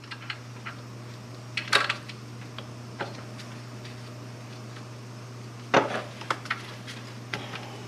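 Scattered light metallic clinks and taps of a mounting bolt and tool against the metal of a power steering pump as the bolt is set in by hand, the sharpest about six seconds in, over a steady low hum.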